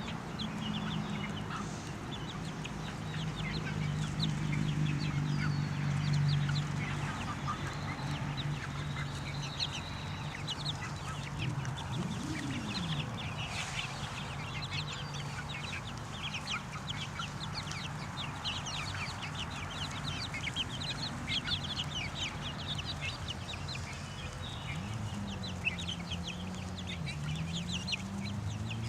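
A flock of young chickens peeping and clucking while they forage, with many short high chirps throughout. A low steady hum runs underneath.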